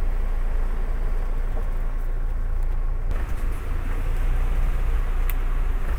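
Car engine and driving noise heard from inside the cabin as the car moves through a flooded street, a steady low rumble. A short sharp click comes about five seconds in.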